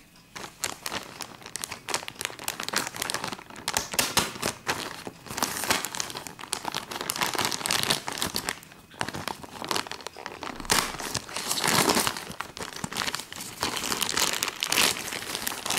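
A mailed package's wrapping being torn open and crumpled by hand: an irregular run of crinkling and tearing.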